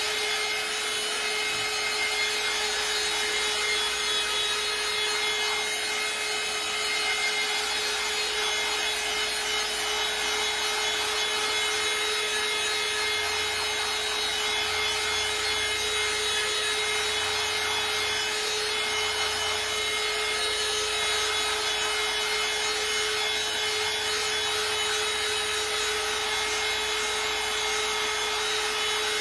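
Small corded handheld electric tool running steadily against a painted wooden surface, an even motor whine with a rubbing hiss over it and no pauses.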